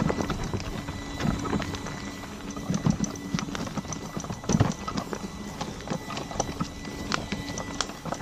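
Electric unicycle riding over a rocky dirt trail: irregular knocks and clatter as the wheel and suspension hit stones, a louder cluster of knocks about three seconds in and again past four and a half seconds, over a steady faint whine.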